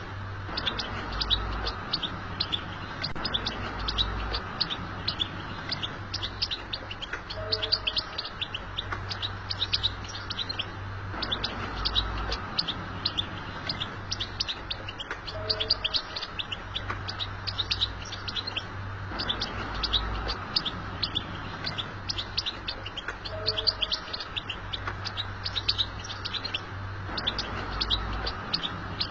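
European goldfinch twittering: a continuous stream of rapid, high chirps, over a steady low hum.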